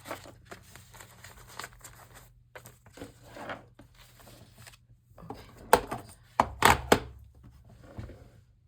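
Paper and craft supplies being handled and shuffled, with rustling and crinkling, and a few sharp knocks on the desk about two-thirds of the way through.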